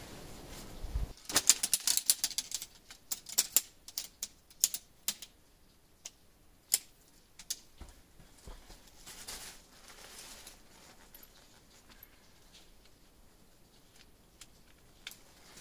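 Sharp clicks and clacks of shock-corded tent pole sections snapping together, coming thick and fast for a few seconds and then as scattered single clicks while the poles are fitted to the tent. A light rustle of tent fabric opens the stretch.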